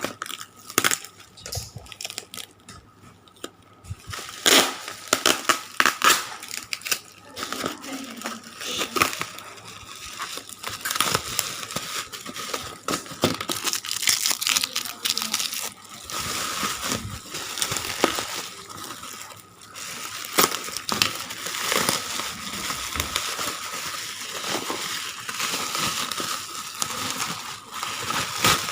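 Parcel packaging being torn open and handled: plastic and paper crinkling and crumpling with sharp tearing and crackling. It starts as scattered crackles and becomes a continuous rustle in the second half.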